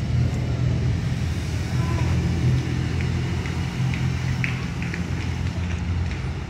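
A steady low engine-like rumble, with a few faint high chirps and ticks in the middle.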